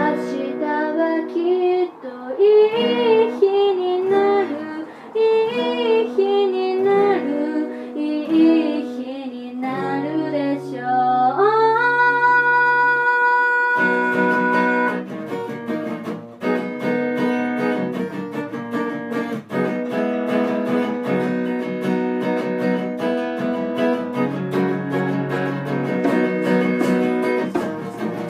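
A girl's voice singing a pop song with acoustic guitar, the melody climbing into one long held high note; about halfway through, the guitar takes up a fuller steady strum joined by djembe hand-drum strokes and shaker.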